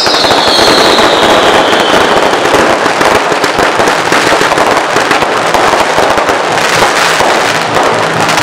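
Daytime colored-smoke fireworks going off in a rapid barrage: dense, continuous crackling and popping, with a whistle falling in pitch during the first two seconds.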